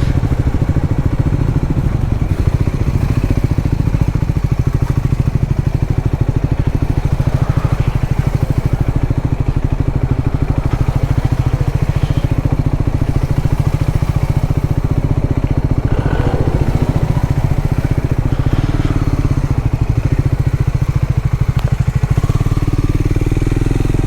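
Triumph Scrambler 400X's single-cylinder engine running steadily at an even, low beat, with no revving.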